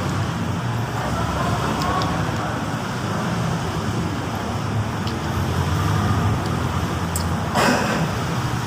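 Steady low rumble of road traffic with faint voices in the background, and a brief hissing rush near the end.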